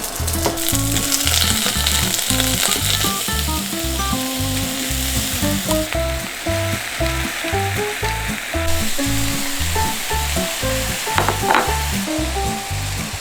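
Mala xiang guo ingredients sizzling as they are stir-fried in hot oil in a pan, a steady frying hiss. Background music with a steady beat plays under it.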